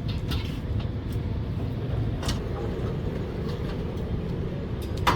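Steady low rumble of background noise, with a few faint clicks and taps.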